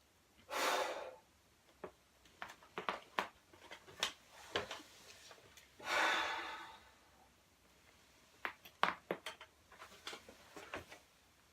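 Joints in the back and neck cracking: a series of sharp pops and clicks in two runs. Two longer rushes of noise come about half a second in and about six seconds in.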